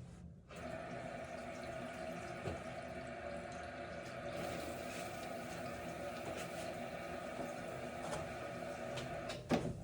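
Water rushing and hissing steadily into a 5-stage water filter system as the supply is turned on and the system pressurises. It stops near the end with a short knock.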